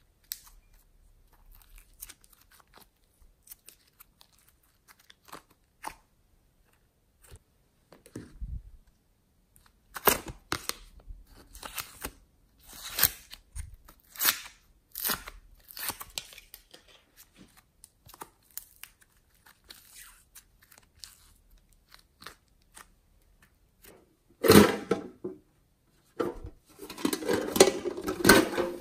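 Hands handling clay, foam and plastic containers: scattered faint sticky clicks at first, then a run of sharp crackles and peels from about ten seconds in as lids come off plastic cups. Near the end there is a dense, steady crackling rustle as a container and its plastic wrapping are handled.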